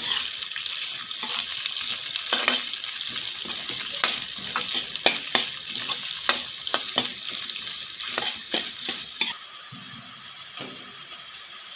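Chopped onions sizzling in hot oil in a pan as they are sautéed, with a spatula stirring and scraping against the pan in quick clicks. Near the end the stirring stops and only the steady sizzle goes on.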